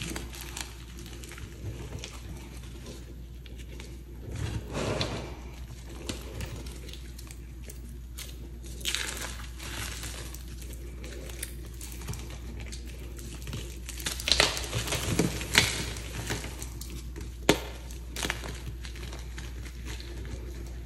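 Hands crumbling and squeezing soft, freshly pasted dyed chalk blocks, giving a continual crisp crackle as the chalk breaks apart. Louder crunches come about five, nine and fourteen to sixteen seconds in, with one sharp snap at about seventeen seconds.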